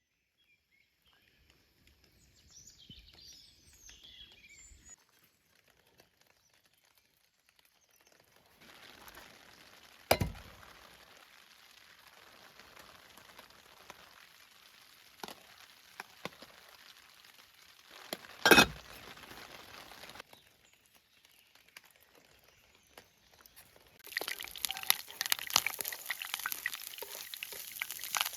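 Camp cooking: a few clinks and two sharp knocks of cookware, then food begins sizzling loudly in a hot pan near the end.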